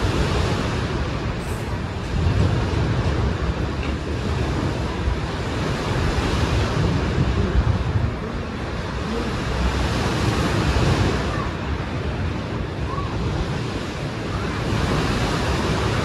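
Sea surf washing onto the shore, a continuous rush of water that swells and eases every few seconds as waves break.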